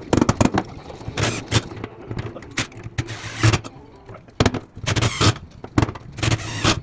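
Cordless drill driving screws to fasten a plastic seat onto its mount, in several short runs, with knocks and clatter from handling between them.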